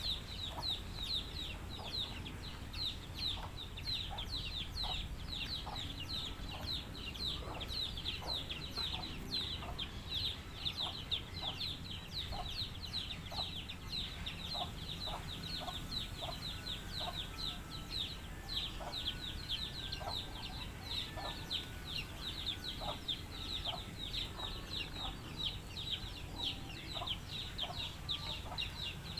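Chickens calling: a constant stream of high, falling peeps over shorter, lower clucks about once a second, with a steady low hum underneath.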